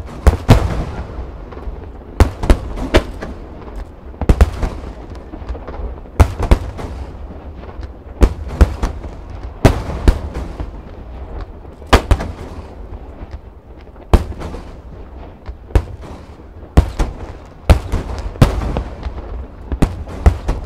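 Fireworks shells bursting: 7-gō (No. 7) underwater fireworks breaking on the river together with aerial shells overhead. Sharp booms come every second or two, sometimes in quick pairs, each trailing off in an echo over a low rumble.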